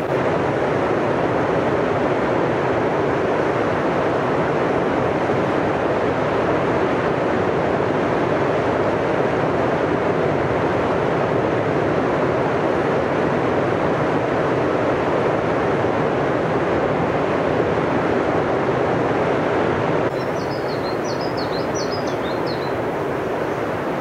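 Katun river in high water rushing over rapids and rocks, a steady loud whitewater noise. About twenty seconds in the sound drops a little, and a small bird gives a quick run of high chirps for a couple of seconds.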